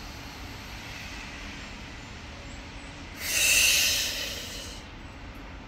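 A woman doing slow paced yoga breathing: a quiet inhale through the nose, then about three seconds in a loud exhale blown out through pursed lips that fades away over about a second and a half.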